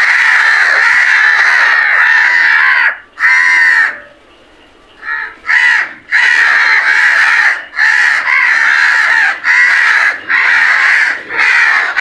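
A group of house crows cawing harshly, the calls running together without a break for about three seconds. After a short quiet spell about four seconds in, the cawing resumes in short bursts with brief pauses.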